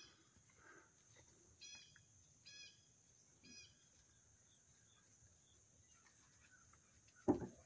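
A bird chirps four short times, faintly, over a steady high-pitched hum. Near the end there is a single thump.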